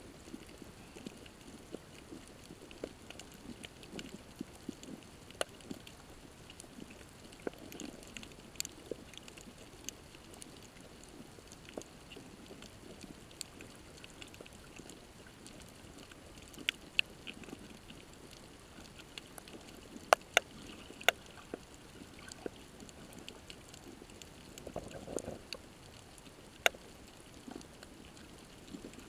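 Underwater ambience on a shallow coral reef: a steady low water murmur with scattered sharp clicks and crackles, the loudest few snaps coming about two-thirds of the way through.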